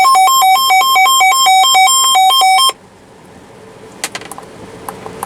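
Electronic alert tone announcing a flash flood warning: a buzzy two-pitch signal hopping unevenly between a higher and a lower note. It cuts off abruptly a little past halfway, leaving a quiet background with a few faint clicks.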